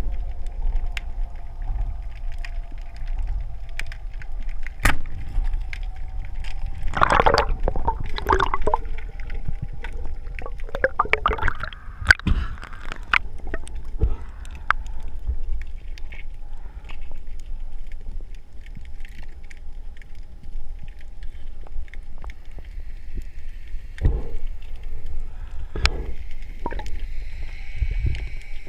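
Underwater sound picked up by a camera in a waterproof housing: a steady low water rumble with a faint hum, scattered sharp clicks throughout, and bubbly gurgling bursts about seven and eleven seconds in.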